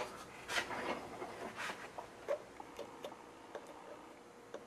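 Faint handling noises: a few short scrapes early on, then scattered light clicks, as a precision screwdriver and a partly dismantled camera lens are handled.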